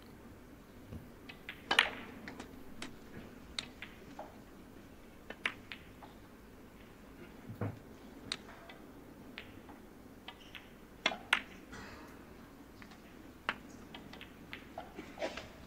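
Scattered, irregular light clicks and taps over a faint steady hum. The loudest click comes about two seconds in and a close pair a little past the middle.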